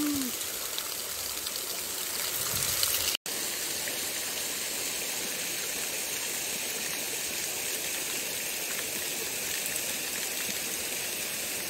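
Small stream running: a steady rush of flowing and falling water, which breaks off for an instant about three seconds in.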